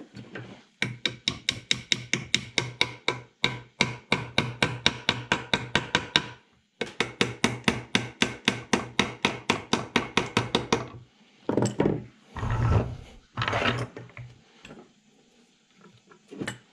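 Steel claw hammer tapping small wooden dowel pegs into a wooden toy truck body, in rapid light taps about five a second, in two long runs. After that come a few softer scraping sounds of wood being handled.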